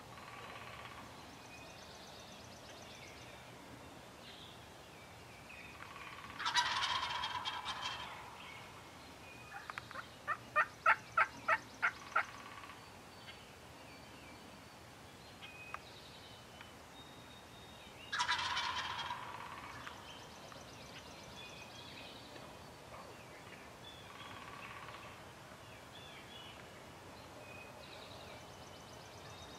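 Wild turkey gobblers gobbling: two loud gobbles, about six and eighteen seconds in, with fainter gobbles between. In between there is a quick run of about nine short turkey yelps.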